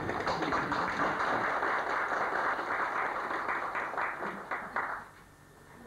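Audience applauding, a dense patter of hand claps that thins to a few scattered claps about four seconds in and stops about a second later.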